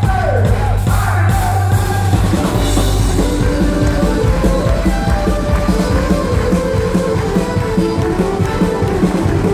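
Live country band playing an upbeat tune through the PA, with fiddle and mandolin carrying a fast run of short notes over guitar and drums.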